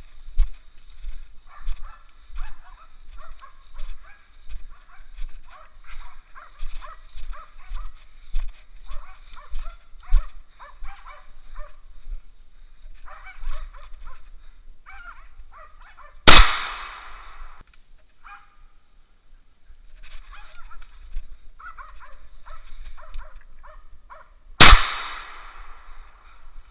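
Russian-European laikas barking steadily at a distance, baying a moose. Two loud gunshots from a hunting gun, the first about 16 seconds in and the second about eight seconds later, each with a trailing echo; the barking breaks off after the first shot and picks up again more faintly.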